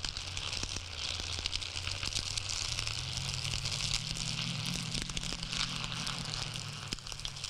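A bundle of dry broom straw bound with twine, twisted and rubbed between the hands close to a microphone: a steady dense crackling and rustling of many tiny snaps. A low steady hum runs underneath.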